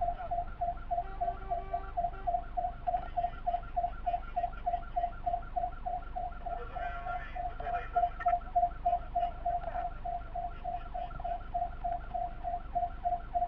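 Fire engine siren heard from inside the cab, sounding one fixed tone that pulses rapidly, about four beeps a second, over the low rumble of the truck.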